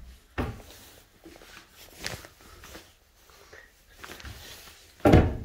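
Kitchen cabinet doors and a drawer under a stainless steel sink being opened and handled: a few scattered knocks and clicks, the loudest near the end.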